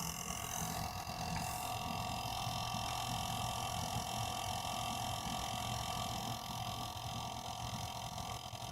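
AMD Radeon R9 Fury X graphics card's liquid-cooling water pump running with a steady rumble and a steady whine above it. The pump is defective and failing.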